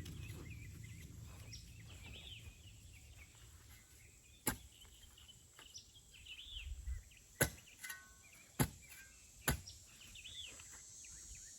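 A shovel strikes the dirt a few times, sharp single knocks spread over the second half, while small birds chirp faintly.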